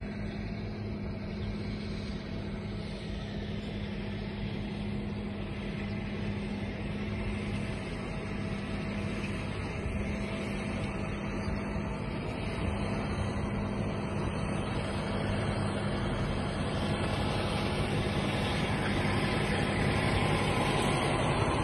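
John Deere 6250R tractor's 6.8-litre six-cylinder diesel engine running steadily under load, pulling a reversible plough through the field, growing louder toward the end.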